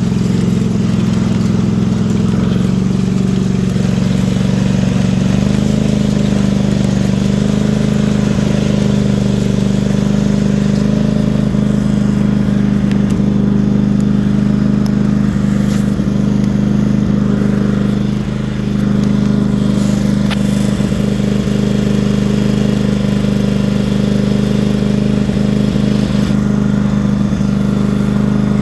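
Lawn mower engine running steadily through a truck exhaust pipe fitted over its outlet, stepping up slightly in pitch a few seconds in, with a brief dip in loudness about two-thirds of the way through.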